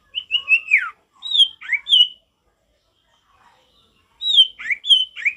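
Common iora (sirtu) singing: two phrases of clear whistled notes, several sliding steeply down in pitch, with a pause of about two seconds between them.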